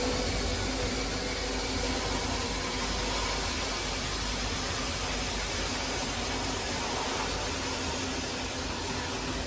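Heavy machinery running steadily: an even mechanical noise with a low engine hum.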